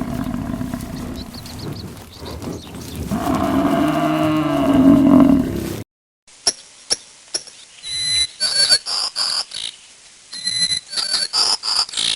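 A cow mooing: one long, low call about three seconds in. The sound then cuts off abruptly and gives way to a run of short high chirps and sharp clicks.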